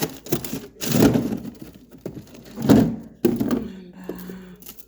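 Frozen food bags and freezer drawers being handled: about four dull thunks as packages are moved and set down, with crinkling of plastic between them.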